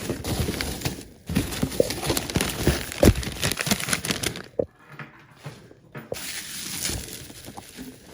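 Packaging being handled and unwrapped: rustling and crinkling with irregular clicks and knocks, broken by short silent gaps.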